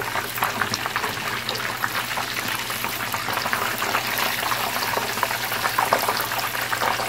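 Breaded mozzarella cheese sticks deep-frying in a pot of hot oil: a steady, dense crackle of many small pops and bubbling.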